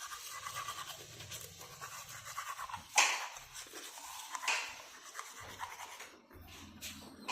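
Light scratching and scraping, with two sharper scrapes about three and four and a half seconds in.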